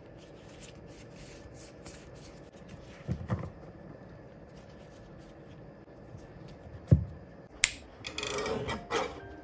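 Stack of matte photo cards being shuffled and flicked through by hand: light scuffs of card rubbing on card. A sharp knock about seven seconds in, then a short stretch of scraping near the end.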